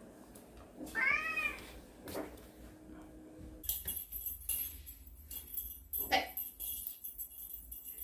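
A calico cat meows once, a short call rising then falling in pitch, about a second in. From about four seconds on there is a light, high jingling.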